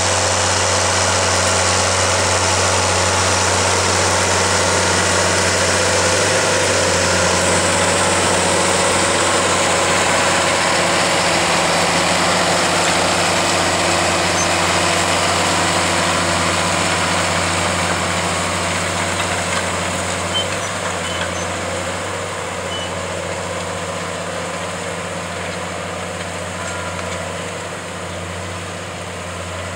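John Deere 7810 tractor's six-cylinder diesel engine running steadily under load while pulling a plough, growing gradually quieter over the last third.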